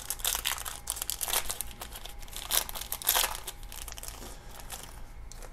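Shiny foil wrapper of a 1986 Sportflics baseball card pack being torn open and crinkled by hand: a dense run of crackles with louder tears about a second in and around three seconds in, dying down near the end.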